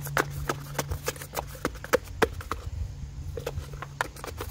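A rod tamping a paper wad down a cardboard confetti-cannon tube onto a golf ball: a run of quick knocks, about three or four a second, with a short pause about two-thirds of the way through.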